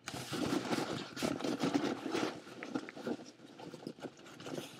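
Packaging rustling and crinkling as hands rummage through a shipping box close to the microphone, dense for about two seconds, then thinning to scattered light clicks and rustles.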